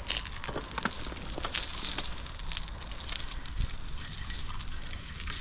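Bicycle tyres rolling over a rough path, with irregular crackling clicks over a steady hiss.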